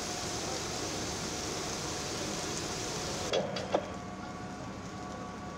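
Steady rushing hiss of a fire hose stream, with a faint steady hum under it. About three and a half seconds in the hiss drops away and two sharp metallic clanks sound, the second the louder, leaving a quieter steady hum.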